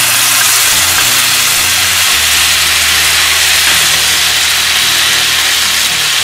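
Loud, steady sizzling of a wet blended onion, tomato, garlic and ginger paste hitting hot butter and oil in a wok, stirred with a wooden spatula.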